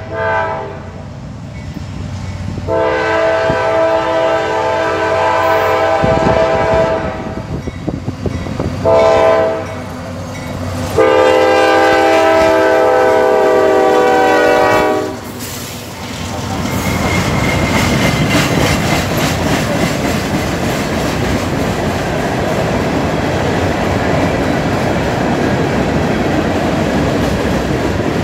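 CSX freight locomotive's multi-note horn sounding the grade-crossing pattern: the tail of one blast, then a long blast, a short one and a final long one. Then the diesel locomotives and rock-laden hopper cars roll past close by, with a steady clickety-clack of wheels over the rail joints.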